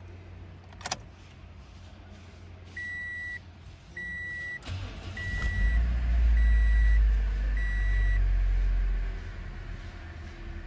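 Freshly rebuilt Toyota 2ZR-FE 1.8 L four-cylinder engine starting about four and a half seconds in, then running at a fast idle that eases down near the end. A dashboard chime beeps five times, evenly spaced, and there is a click about a second in.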